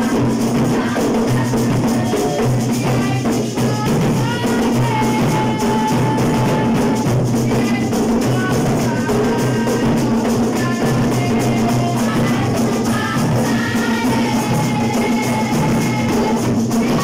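Assiko percussion music: hand drums and metal-plate percussion played in a steady, dense rhythm, with a boy's voice singing over it.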